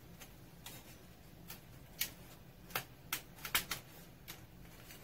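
Light clicks and taps of metal parts being handled: aluminum flashing fitted around a steel clutch drum mounting plate. About half a dozen sharp, irregular clicks start about two seconds in.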